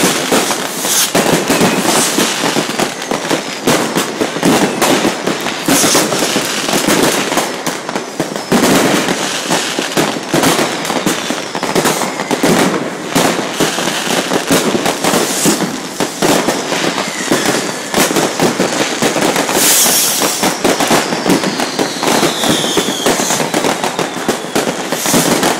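Continuous barrage of fireworks: rockets and firecrackers bang and crackle in quick, overlapping succession, with no let-up. A descending whistle cuts through the bangs about three-quarters of the way through.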